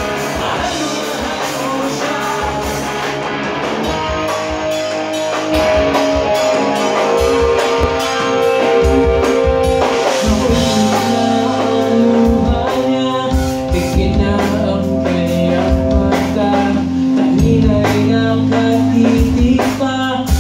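Live rock band playing: a man singing into a microphone over electric guitars and a drum kit, the music getting louder about five seconds in.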